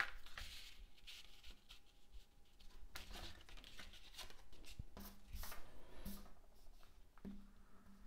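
Card stock being handled and pressed down on a cutting mat, with faint scattered rustles and soft taps as a paper corner is glued into place.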